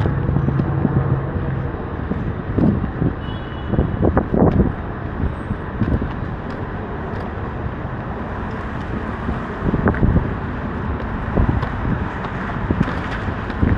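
Downtown street ambience: steady traffic noise with vehicles passing and a few brief louder swells.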